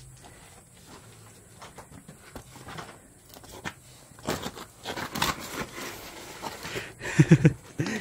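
Scuffing, scraping and clothing rustle of people clambering through a tight cave entrance over rock and mud, busiest around the middle. A brief vocal sound near the end.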